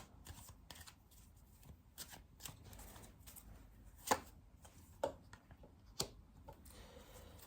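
Tarot cards being shuffled and handled: faint scattered flicks and taps, with three sharper card snaps about a second apart in the second half.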